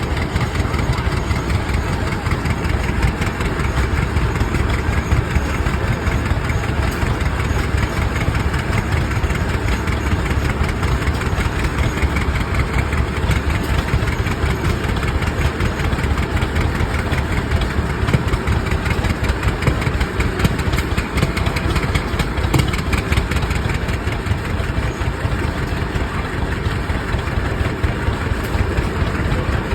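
Rumely OilPull tractors' slow-turning two-cylinder engines running steadily while belted to a sawmill.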